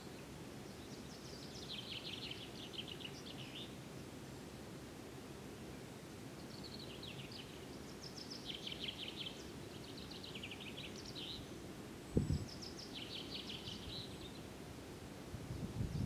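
Small songbirds singing short trilled phrases every couple of seconds over a steady low outdoor rumble. A single low thump comes about twelve seconds in, and low buffeting rumbles begin near the end.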